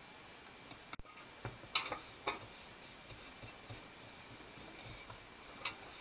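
A few faint, sharp clicks and taps of objects being handled on a work table, the last near the end as a small metal birdcage is lifted.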